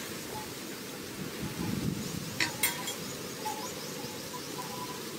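Two sharp metallic clinks a little before halfway through as the aluminium cooking pot is handled on the clay stove, over a steady low background rumble.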